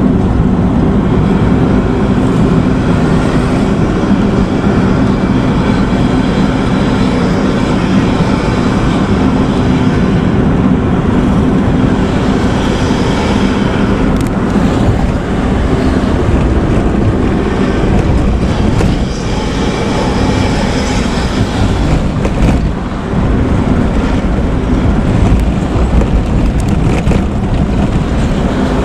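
Front-engined intercity bus running on the road with its 'ngorok' (snoring) exhaust, described as melodious: a deep, rough, continuous engine drone at a fairly steady pitch, dipping briefly about 23 seconds in.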